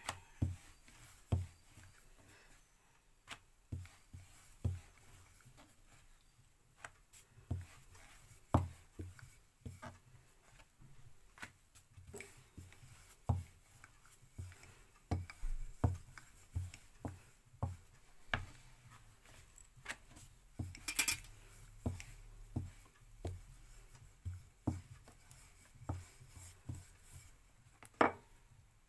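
Irregular sharp wooden knocks and taps of kitchen work on a board, roughly one a second, with a brighter scraping clatter about two-thirds of the way through and a loud knock near the end.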